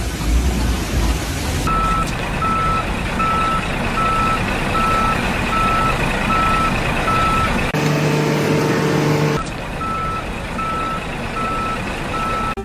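A vehicle's reversing alarm beeping at an even pace, about one and a half beeps a second, over the noise of a running truck engine. The beeping breaks off briefly for a low steady hum about eight seconds in, then resumes.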